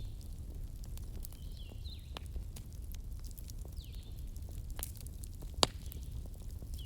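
Wood fire in a fireplace crackling with scattered small pops over a low steady rumble, and one sharp, louder pop about five and a half seconds in.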